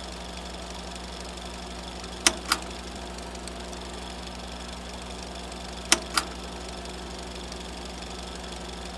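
A steady low mechanical hum with a double click, two sharp clacks about a quarter second apart, heard twice: a little over two seconds in and about six seconds in.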